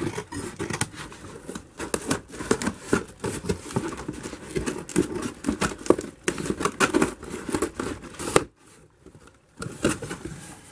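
Scissors blade slicing and scraping along the clear packing tape on a corrugated cardboard box, with the tape tearing and the cardboard crinkling in a run of quick scratchy clicks. It stops for about a second near the end, then picks up again briefly.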